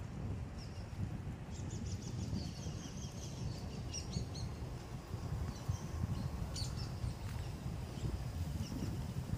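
Small birds chirping in quick repeated notes, busiest from about a second and a half in to the middle, with a few more later. Under them is a steady low rumble of wind on the microphone.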